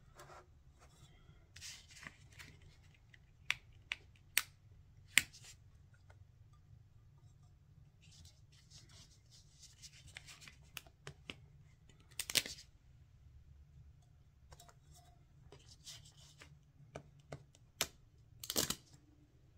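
Small vinyl decals being picked off their backing sheet with a weeding tool and pressed onto a glittered tumbler: scattered sharp ticks and brief rustles of the vinyl and sheet, over a faint low hum.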